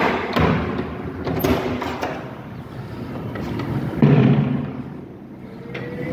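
Knocks and thumps of a wooden mesh screen door being handled, with a heavy thud about four seconds in as the door is pushed open.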